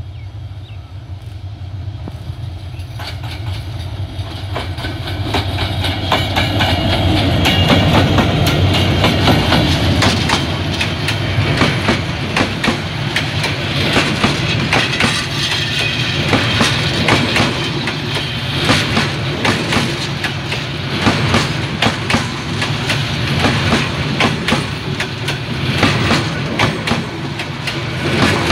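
Korean-built EMD diesel-electric locomotive hauling a metre-gauge passenger train at speed. Its engine rumble grows louder as it approaches and peaks about eight seconds in as it passes. The coaches then roll past with a steady clickety-clack of wheels over rail joints.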